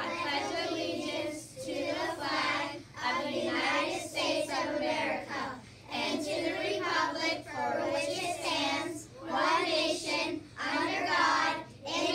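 A class of young children reciting the Pledge of Allegiance together in unison, phrase by phrase with short pauses between phrases.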